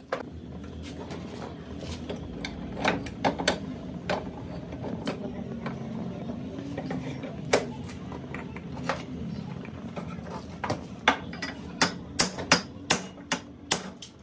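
Hammer striking a chisel set against the old bearing race on a Toyota Hiace wheel hub, to drive it off the spindle: sharp metallic strikes, spaced irregularly and coming quicker in the last few seconds, over a steady low hum.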